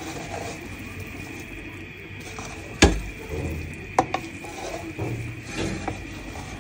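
A spatula scraping and knocking against a cooking pot while turning a pot of cooked biryani. There is one sharp clack about three seconds in, the loudest sound, then a few lighter knocks and scrapes.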